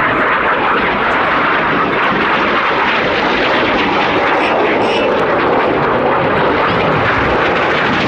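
Loud, steady jet engine noise from the Red Arrows' BAE Hawk T1 jets in flight.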